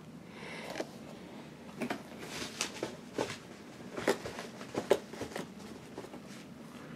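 Cardboard figure boxes with plastic windows being handled and shifted: a string of light taps, scrapes and rustles, most of them in the middle of the stretch.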